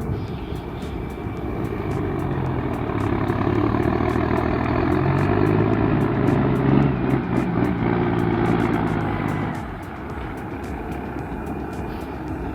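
Heavy logging truck's engine pulling under load. It grows louder through the middle, then drops off abruptly about ten seconds in.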